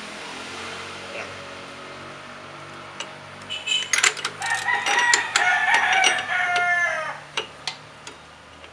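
A rooster crowing once, loud and drawn out from about three and a half seconds in, its call sliding down at the end. Several sharp metallic clicks of a wrench working the scooter's clutch nut come through during and after it.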